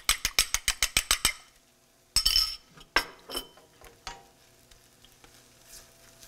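A utensil clinking rapidly against a bowl as an egg is beaten, about eight clicks a second for just over a second. Then a brief hiss about two seconds in and a few light clinks.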